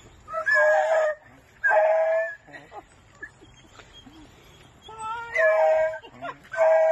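A hound-type dog howling, four drawn-out calls of steady pitch with a few faint whines between them, in excited greeting as it is hugged.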